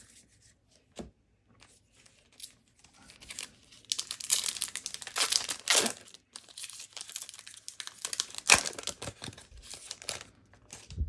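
Foil wrapper of a Magic: The Gathering Modern Horizons 2 set booster pack being torn open and crinkled by hand. It starts about four seconds in after a few faint taps, with one sharp loud crackle near the end.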